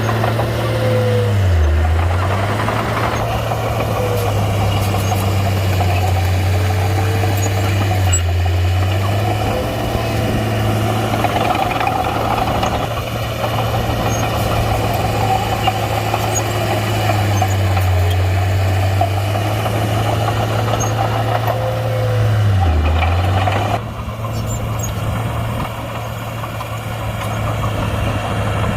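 Komatsu D31-P bulldozer's diesel engine running steadily as it works, its pitch dipping briefly about two seconds in and again about three-quarters through, then getting somewhat quieter near the end.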